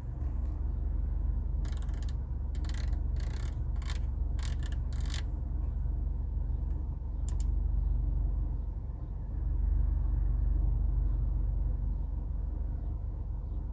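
A run of about eight sharp, irregular clicks from switches or buttons being pressed in a car's cabin, then one more click a couple of seconds later, over a low steady rumble. No audio comes from the infotainment system.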